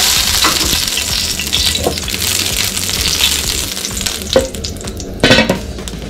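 Pancake batter frying in hot oil in a frying pan, sizzling steadily, with a few sharp knocks of a utensil against the pan, the loudest two near the end.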